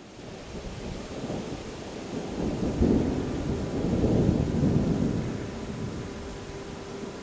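Rolling thunder: a low rumble that builds about a second in, swells loudest between about three and five seconds, then slowly fades.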